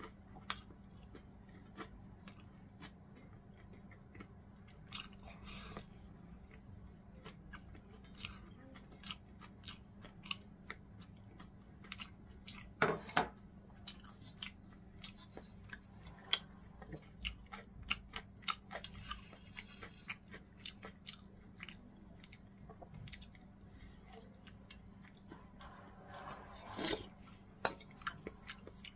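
A person chewing and biting food, with many small irregular mouth clicks and a few louder bites about halfway through and near the end, over a faint steady hum.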